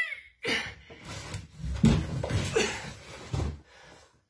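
Bumps, knocks and scuffing of a person clambering out of a plastic storage tub onto a tiled floor, a cluster of thumps with the loudest about two seconds in.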